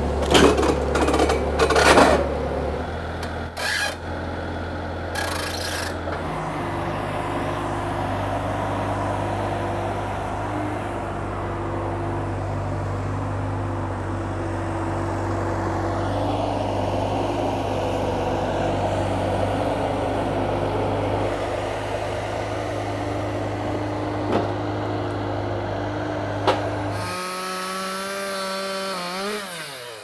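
Skid steer loader's engine running steadily while it carries a stack of lumber slabs on its forks. A few clanks and knocks come in the first couple of seconds, and the engine pitch steps up twice in the first six seconds. Near the end the sound switches abruptly to a higher whine with several rising tones.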